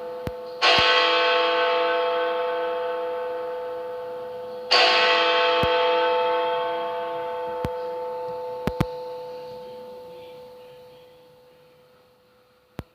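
Big Ben, the great hour bell of the Westminster clock tower, striking the hour: two strokes about four seconds apart, the second left to ring out and fade slowly away. A few sharp clicks are heard at odd moments.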